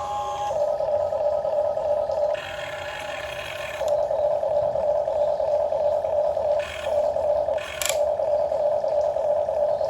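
A radio-controlled excavator's electric motors whirring steadily. The pitch changes as different functions run: a higher whir for about a second and a half near the start, and two brief breaks with short higher bursts near the end.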